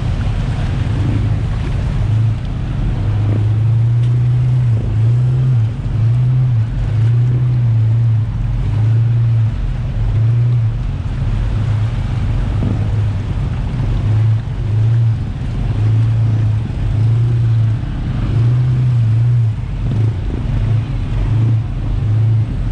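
Jet ski under way: a loud, steady mix of engine, water and wind, with a heavy low rumble that cuts in and out every second or so.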